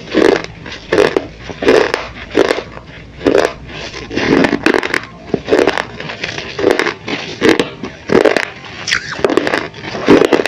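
Close-miked chewing of pieces of baked terracotta clay pot, a gritty crunch about every two-thirds of a second as the brittle clay breaks between the teeth.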